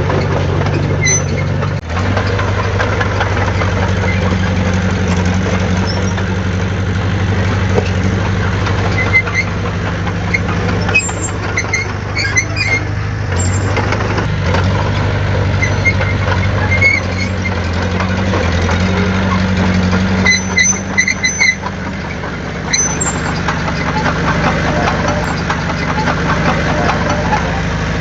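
Heavy diesel engine of an earthmoving machine running steadily, with its pitch shifting a little as the load changes. Short high squeaks come through twice, about 11 to 13 seconds in and again around 20 seconds.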